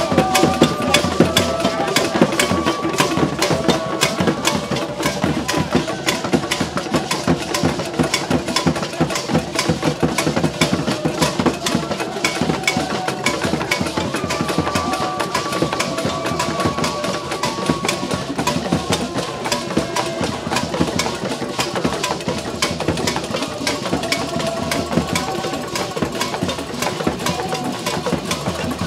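Fast traditional drumming, a dense run of rapid strikes without a break, with a few voices singing or calling over it.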